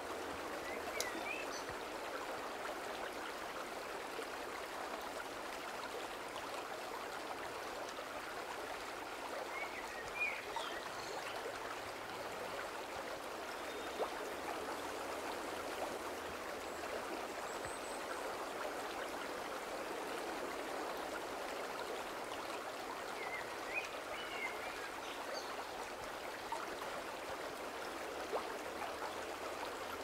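A fast-flowing river running over rocks, a steady wash of rushing water. A few short, faint high chirps come through it now and then.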